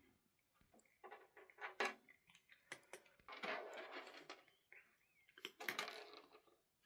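Cats eating dry treats off a plastic scale: faint, irregular clicks and crunches, with two longer bursts of crunching about halfway through and near the end.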